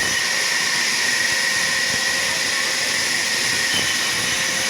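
Sawmill machinery running steadily: a constant rushing noise with a steady high whine.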